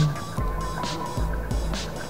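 Background music with a soft, steady beat, a hiss-like stroke recurring about once a second, over a low rumble.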